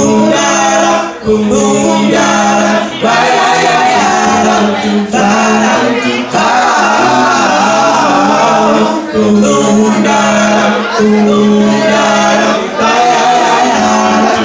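Male vocal group singing in close harmony, several voices held together over a steady low sustained note, with short breaks between phrases.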